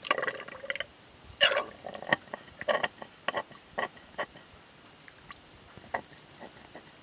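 Coolant being squirted from a bulb-type antifreeze tester back into the radiator filler neck: a string of short squirts and gurgles, most of them in the first four seconds, then a few light clicks.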